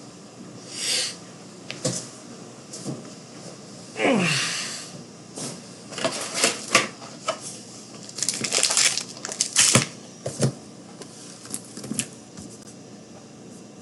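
Scattered clicks, taps and light knocks of small objects being handled, closely bunched for a couple of seconds past the middle, with one short squeak sliding down in pitch about four seconds in.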